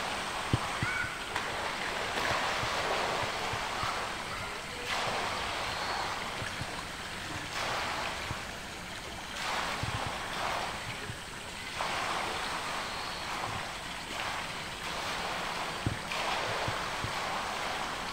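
Pool water sloshing and lapping as a polar bear moves in it, swelling and easing every second or two.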